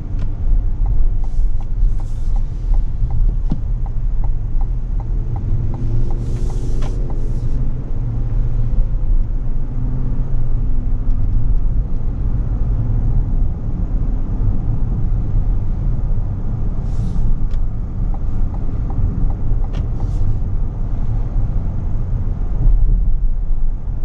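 Cabin noise of a 2021 Cadillac Escalade ESV on the move: a steady low rumble of road and engine noise, with a few brief faint hisses.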